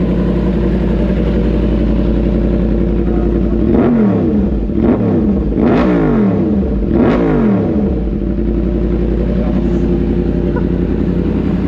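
Yamaha MT sport motorcycle engine idling, blipped about four times in quick succession from about four to eight seconds in, each rev rising and dropping straight back to idle.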